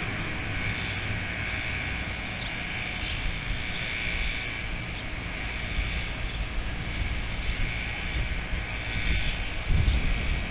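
Steady rushing hiss of a steam locomotive standing under steam, with a thin high whine and no whistle sounding; a low rumble rises near the end.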